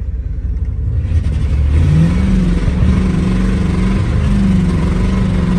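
Ram 1500's Hemi V8 revving hard under load in first gear, pulling the truck out of a mud hole; the engine note climbs about two seconds in and is held high.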